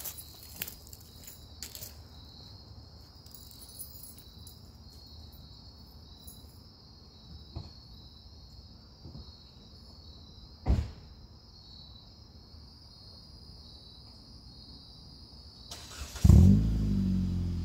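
Crickets chirring steadily, with a single car-door thump partway through. Near the end the 2008 Jeep Patriot's four-cylinder engine starts with a loud burst and settles into a loud, deep idle through its muffler-deleted exhaust.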